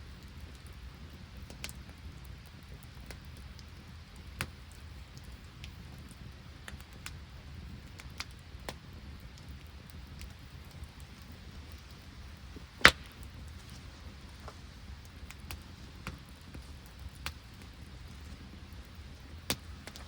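Open wood campfire crackling, with scattered sharp pops and one loud crack about thirteen seconds in, over a steady low background noise.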